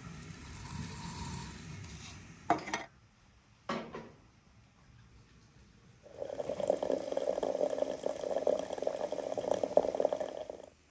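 Water running from a samovar's tap into a glass teapot, a steady pour starting about six seconds in and stopping abruptly near the end. Before it come two short, sharp knocks.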